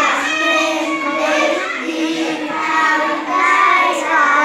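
A group of children reading Thai verse aloud in unison, in a sing-song chant with drawn-out syllables.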